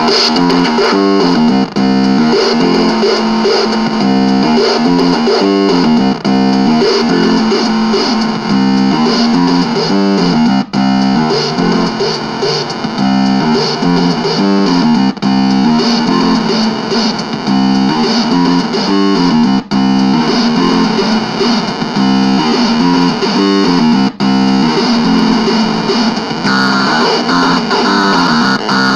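Realistic Rapmaster toy keyboard run through a Timebox Crunch analog synth box into a small Squier amp, playing a thick, crunchy, distorted synth pattern. The pattern repeats as a loop, with a brief gap about every four and a half seconds.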